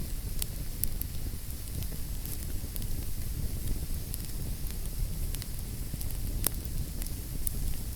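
Wood fire crackling in a fireplace: sharp pops and clicks scattered irregularly over a low, steady rumble of burning. The strongest pop comes about six and a half seconds in.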